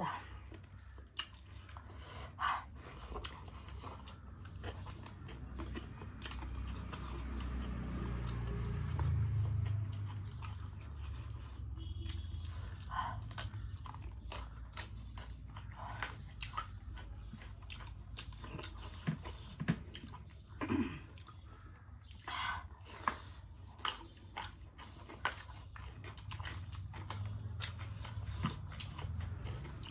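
Close-miked eating sounds from a meal of rice, dal and chicken: chewing and biting with many short irregular mouth smacks and clicks, over a low steady hum.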